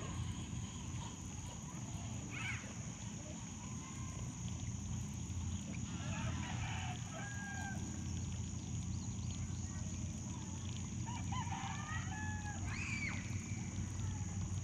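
A few distant bird calls, short phrases that rise and fall in pitch, around two, six and twelve seconds in, over steady outdoor background noise.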